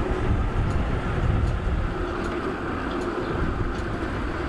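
Wind buffeting the action camera's microphone on a fast bicycle descent, a steady low rushing noise.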